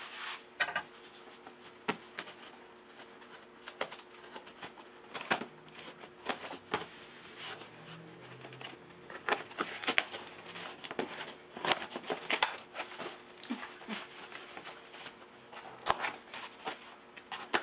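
A cardboard shipping box being opened by hand: irregular clicks, scrapes and rustles of tape and cardboard, over a faint steady hum.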